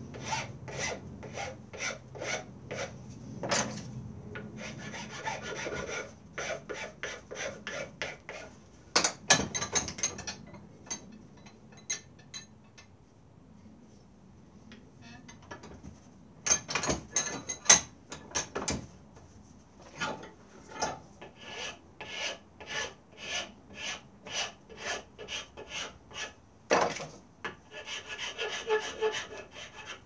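Hand file being stroked back and forth across a carved wooden thumbstick head held in a vise, shaping the wood at about two strokes a second. The filing stops for several seconds near the middle, then starts again.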